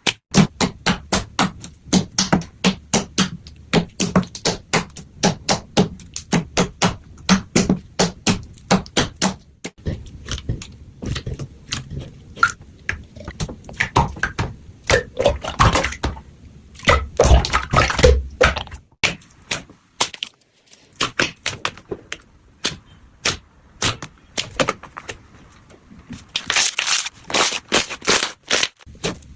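Slime being worked by hand, giving a rapid series of sharp clicking, crackling pops, about three to four a second, thicker and fuller in the middle and again near the end.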